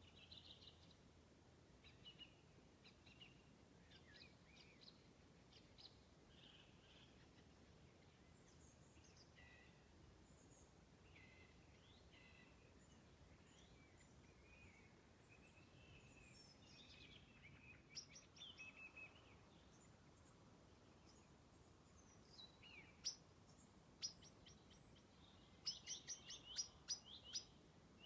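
Faint birdsong from several wild birds: scattered short chirps and warbled phrases, growing into a run of louder, quick chirps near the end.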